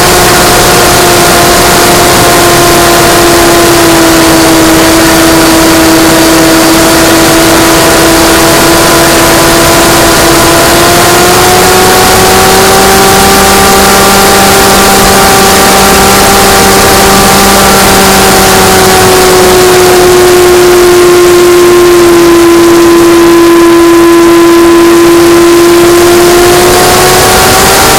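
Model airplane motor and propeller running at a steady, loud drone over a constant rush of air. The pitch rises a little about a third of the way in, drops again later and climbs once more near the end, following the throttle.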